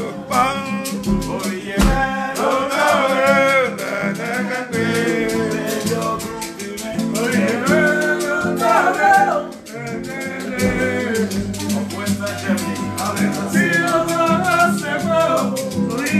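A steel-string acoustic guitar strummed in a quick, steady rhythm while a man sings over it.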